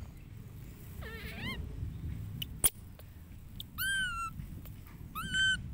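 Baby monkey giving short, thin, high-pitched squealing calls that dip in pitch: a faint one about a second in and two clearer ones in the second half. A single sharp click comes about midway.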